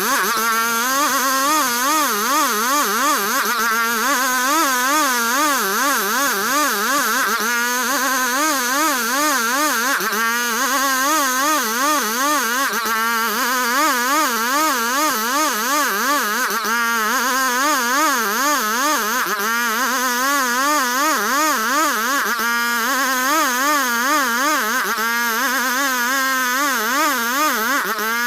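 Sawmill machine's engine running steadily while sawing ulin ironwood, its pitch wavering up and down about three times a second, with short dips every few seconds.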